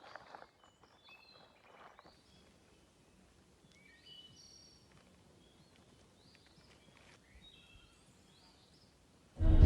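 Faint outdoor ambience with scattered short bird chirps, and a few soft rustling sounds in the first two seconds. Loud music cuts in suddenly near the end.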